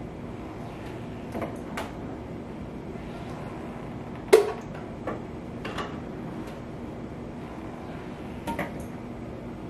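Glass canning jars clinking and knocking against the pressure canner and each other as they are lowered in with a metal jar lifter: a scattering of short, sharp clinks, the loudest about four seconds in, over a steady low hum.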